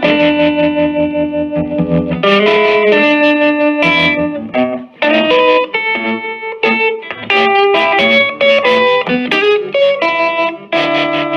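Electric guitar played through a 1965 Silvertone 1484 tube amp's second channel, with the amp's tremolo at full strength and slowest speed and the volume a little over halfway. Held chords and single notes are restruck in phrases, with short breaks between them.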